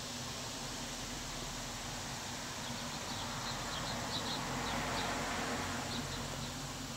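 Steady outdoor background noise with faint, short, high chirps scattered from about three seconds in until near the end, and a soft swell of hiss in the middle.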